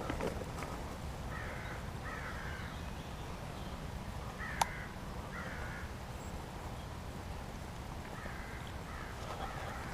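Crows cawing in short harsh calls, several times in pairs. A single sharp click about halfway through is the loudest sound, over a steady low rumble.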